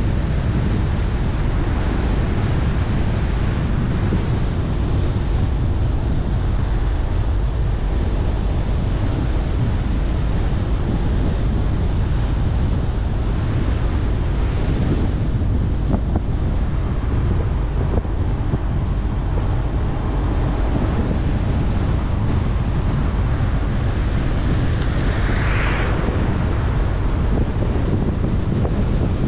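Steady wind and road noise from a car driving at speed, wind buffeting the microphone, with a deep constant rush. A brief higher hiss swells and fades near the end.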